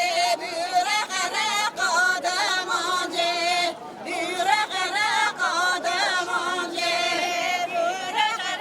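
A crowd of voices singing together, with high warbling voices over a long held note.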